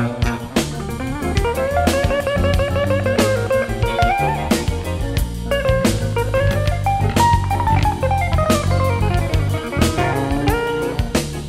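Jazz-funk band recording: electric bass groove, drum kit and electric guitar, with a lead melody line that bends up and down.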